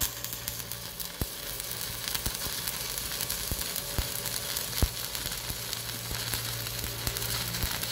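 Electric arc welding on the thin sheet steel of a trailer fender with a small inverter welder: a steady crackling sizzle from the arc, with scattered sharper pops.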